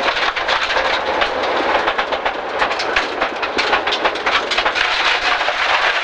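Subaru Impreza rally car at speed on a loose gravel stage, heard from inside the cabin: a loud, constant rush of tyres on gravel with stones clattering against the underbody and wheel arches, over the engine.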